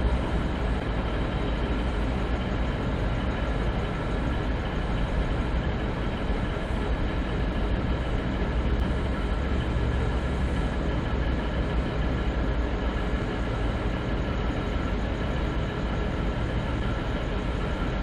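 Diesel locomotive idling steadily: a constant low rumble with several steady whining tones over it.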